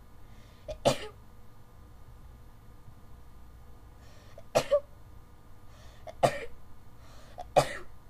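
A person sneezing in an allergy-driven sneezing fit: four sharp sneezes, each after a short breath in, the first about a second in and the others coming close together in the second half.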